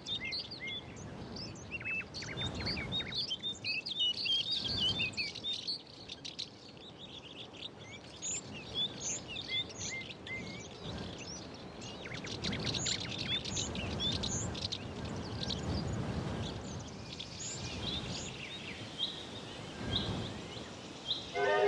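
Small songbirds chirping and singing, many short high calls that come and go, over a faint steady background hiss.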